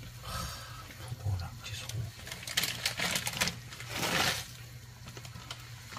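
Dry instant ramen noodles crackling and snapping as the block is broken up and dropped into a pot of stew, in a series of short crunchy bursts. A plastic ramen packet crinkles loudest about four seconds in, over a steady low hum.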